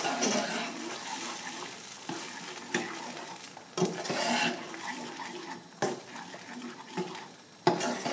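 Carbonara sauce of bacon, mustard and cream stirred in a steel pan: a utensil scrapes and knocks against the pan in irregular clicks over a steady low sizzle.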